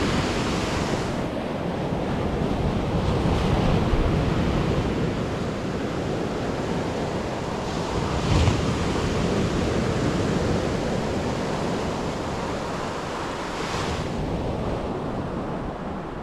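Sea surf washing onto a sandy beach, a steady rush that swells briefly about eight and fourteen seconds in, with wind buffeting the microphone.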